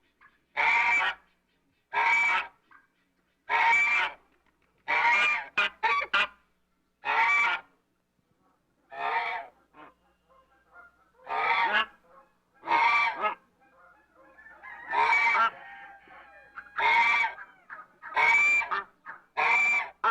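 African goose honking: a series of loud, pitched honks, each about half a second long, coming roughly one every one to two seconds, with a brief pause partway through.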